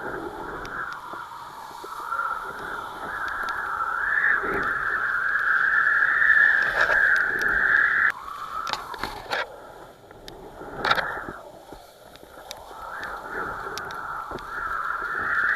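Rushing wind and water noise during kitesurfing in 30–35 knot winds, swelling and fading, with a few sharp knocks and a brief lull partway through.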